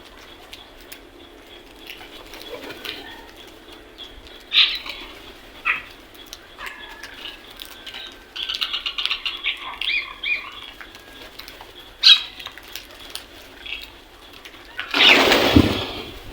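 Crows and other birds calling: scattered short calls, then a quick run of chirps through the middle. Near the end a loud rushing burst of about a second stands out above the calls.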